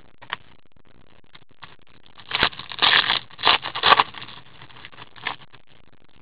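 Clear plastic crinkling and rustling as a trading card is handled and slipped into a plastic sleeve. It comes in a few short bursts about two to four seconds in, with a light click before and after.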